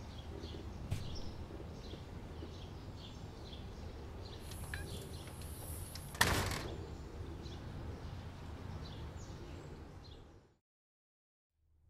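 Faint bird chirps over a steady low outdoor hum, with a sharp click about a second in and one loud knock about six seconds in that dies away quickly. The sound fades to silence shortly before the end.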